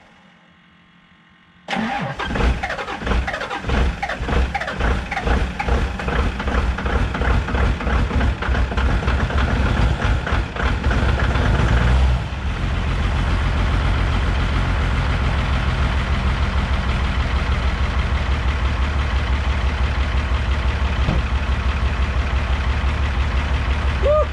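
12-valve Cummins inline-six diesel in a Ford F-350 starting cold at about 10 degrees with no intake heater: it fires abruptly after a second or two and runs unevenly for about ten seconds, then settles into a steady diesel idle.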